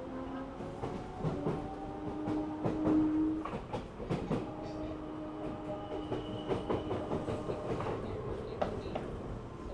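Odakyu 1000 series electric commuter train running between stations, heard from inside the car: a steady electric hum with wheels clacking and knocking over rail joints.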